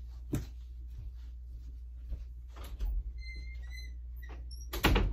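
Footsteps and small knocks, then a door hinge squeaking in a few short chirps as a bedroom door is opened, and the door shutting with a loud thump near the end, over a steady low hum.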